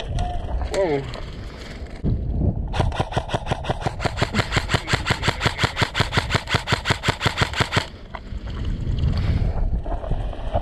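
Airsoft rifle firing one long full-auto burst, a rapid, even string of shots lasting about five seconds that cuts off suddenly.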